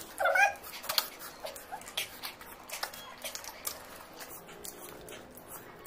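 Close-miked eating sounds: wet clicks and smacks of chewing, scattered through the stretch. A short high-pitched whine rises near the start.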